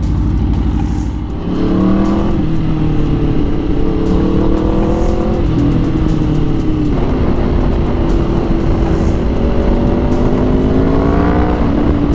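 Aprilia RSV4 1100 Factory's V4 engine through an SC Project SC1-R exhaust, heard from the rider's seat: the exhaust note falls in pitch as the bike decelerates and downshifts, then rises again with the throttle and drops sharply near the end at a gear change, over steady wind rush.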